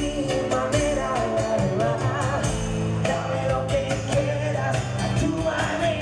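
Live acoustic performance: a man singing into a microphone over a strummed acoustic guitar, with a steady percussion beat.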